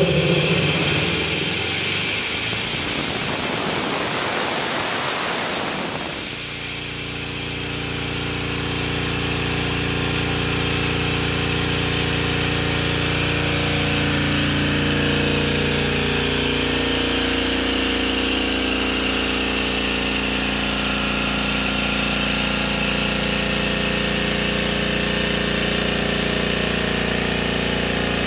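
Tanabe H-74 two-stage, water-cooled marine air compressor running on its electric motor, a steady mechanical hum.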